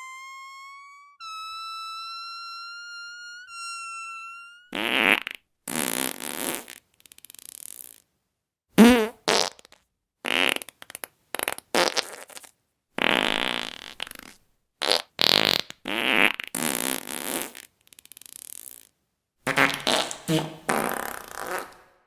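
A rapid string of fart sounds: short, raspy blasts of differing lengths with brief gaps between, one about nine seconds in wobbling up and down in pitch. Before them, for the first four seconds or so, a clean, high whistling tone that steps up in pitch twice.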